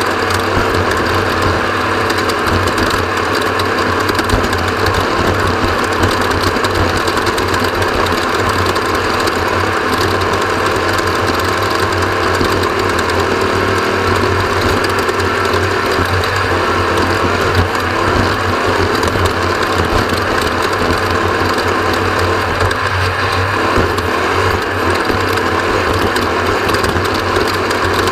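Steady, loud, rapid mechanical clatter of a bike being ridden on a trail race lap, heard up close.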